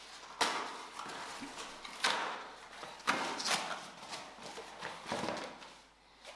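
Cardboard packaging being handled as a vacuum brush attachment is worked out of its small cardboard box: about five sharp knocks and scrapes with rustling between them.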